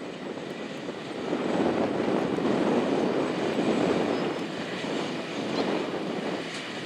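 John Deere 9600i self-propelled forage harvester chopping hay, with a tractor towing the forage wagon alongside. It makes a steady mechanical running noise that grows louder about a second and a half in.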